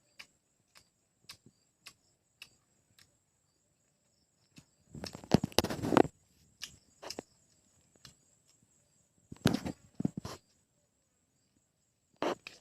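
Mouth sounds of someone eating a lemon close to the microphone: scattered sharp clicks and smacks, then three noisy bursts of chewing and sucking, the loudest about five seconds in.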